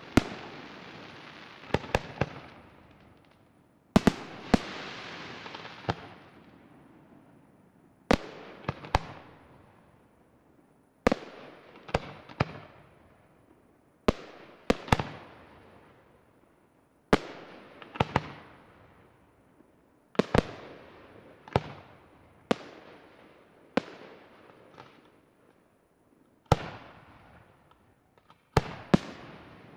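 Fireworks display: aerial shells bursting one after another, a sharp bang every second or two, some in quick pairs, each trailing off in a rolling echo.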